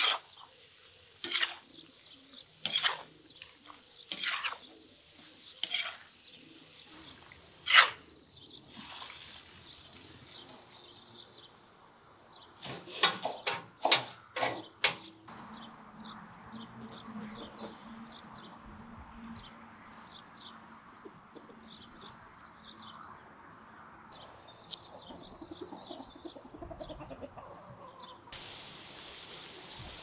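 A spatula knocking against a large metal cooking pan while meat and peppers are stir-fried, one sharp knock about every second and a half, then a quick cluster of knocks. After that, quiet chirps from farmyard chickens and small birds.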